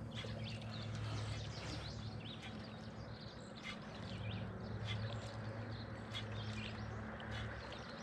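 Songbirds chirping and singing in quick, overlapping short calls, over a steady low hum.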